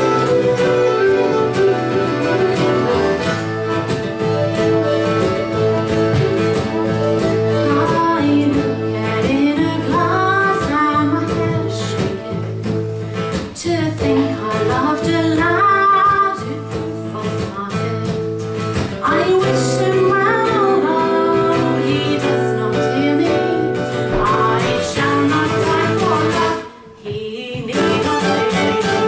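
Live folk band playing a traditional song in mixolydian mode: acoustic guitar, fiddle and melodeon, with a woman singing over them. The music drops out briefly near the end, then comes back in.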